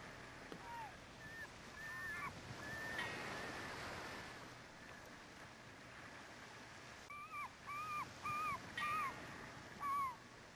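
Faint, short high-pitched calls from an animal, each rising and falling in pitch, over a low hiss: a few scattered calls, then a run of five about half a second apart near the end.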